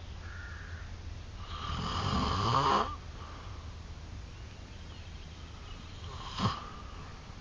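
A man snoring: one long, loud snore starts about a second and a half in and lasts about a second and a half, its low pitch rising. Then there is one short, sharp sound near the end.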